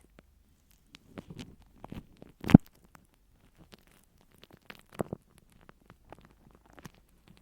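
Close-miked ASMR trigger sounds: scattered light scratches and taps on an object, with a louder knock about two and a half seconds in and another near five seconds.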